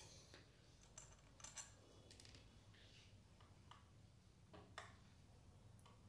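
Faint, scattered clicks of a screwdriver turning out the cover screws of a ceiling fan motor.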